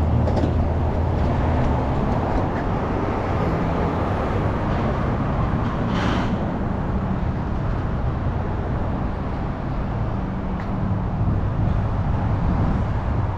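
Steady road traffic on a busy multi-lane street: cars and vans idling and driving past, with a brief hiss about six seconds in.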